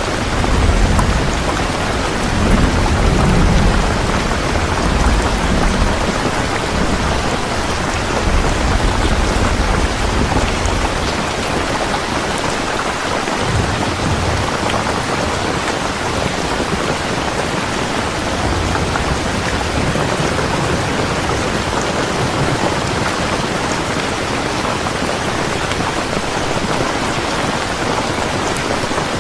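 Steady rain, with a low rumble of thunder rolling through roughly the first ten seconds and then fading into the rain.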